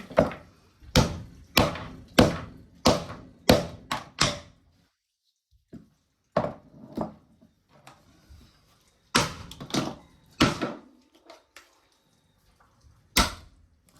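Hammer blows on a TV speaker's magnet, about two a second for the first four seconds, then a few scattered strikes after a pause.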